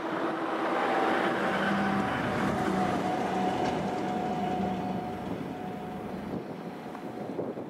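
Engine of a small landing-craft-type utility boat running underway at speed, a steady hum with a few held tones over the rush of its bow wave and wake, easing off in the second half.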